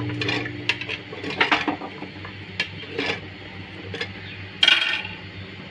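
A steel ladle clinks and scrapes against an aluminium pressure cooker while beetroot slices are dropped in and stirred through the meat masala. These are scattered light knocks, with one louder scrape near the end.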